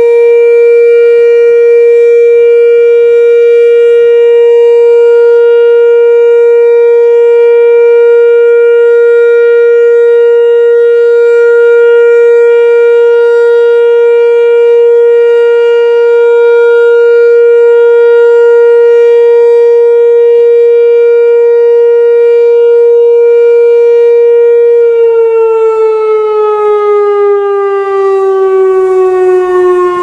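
Whelen WPS-2740 electronic outdoor warning siren sounding its steady alert tone, one loud unbroken pitch held flat. About 25 seconds in, the tone begins to slide slowly down in pitch.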